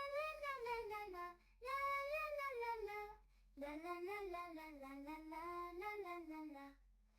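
A high voice singing three long, drawn-out phrases, with little or no accompaniment to be heard.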